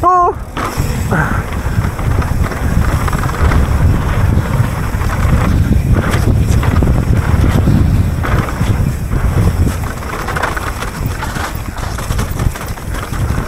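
Wind rushing over the microphone of a camera riding on a mountain bike at speed down a muddy dirt trail, with the low rumble and rattle of the bike over rough ground.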